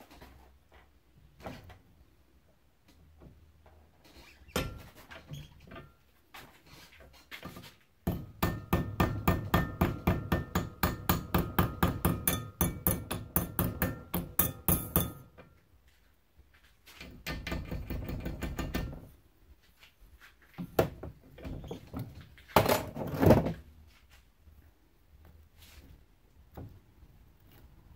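A hammer beating the edge of a thin sheet-metal strip clamped in a bench vise, turning it into a slight curved lip. About eight seconds in comes a quick run of blows, about four a second for some seven seconds, with a ringing metallic note. Before and after there are scattered taps and a few louder handling noises.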